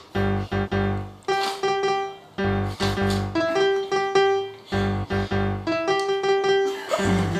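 Background piano music: a run of struck notes that ring and fade over a steady low bass.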